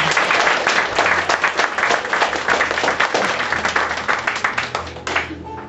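Live audience applauding, many hands clapping, dying away about five seconds in as music begins.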